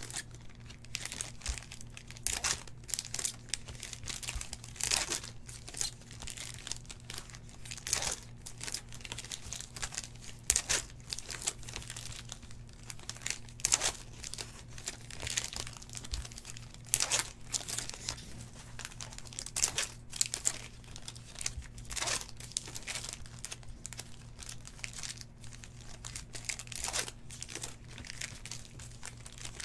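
Foil trading-card pack wrappers being torn open and crinkled in the hands, with cards handled and stacked: an irregular run of crackling bursts over a steady low hum.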